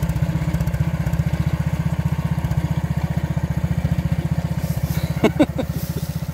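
Karakat's engine running steadily under throttle, with an even, fast, low throb.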